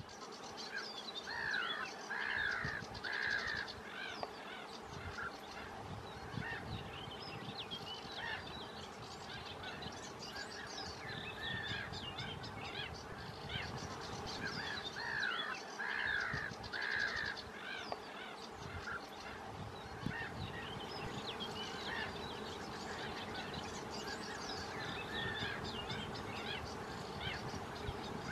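A mix of birds calling over a steady low background noise, with many short chirps throughout and, twice, a group of three louder calls.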